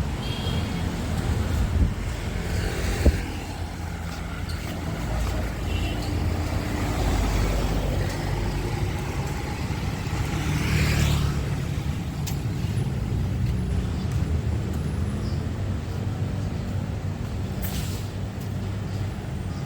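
Busy street traffic: vehicle engines running and passing in a steady hum, with a sharp click about three seconds in and a brief hiss near the middle.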